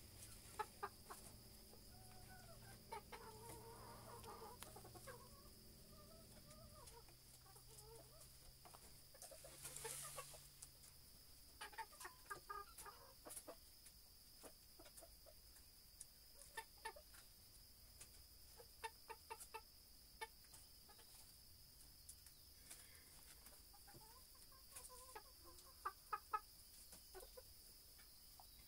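Chickens clucking faintly: clusters of short clucks, with a longer wavering call a few seconds in.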